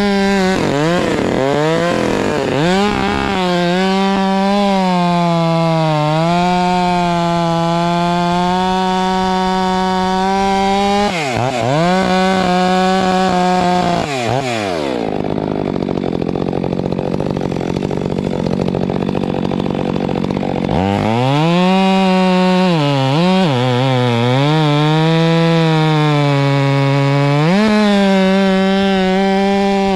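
Stihl MS 462 C-M two-stroke chainsaw at high revs, bucking a large oak log, its pitch sagging and recovering as the chain bogs in the cut. About halfway through it drops to idle for several seconds, then revs back up and cuts again.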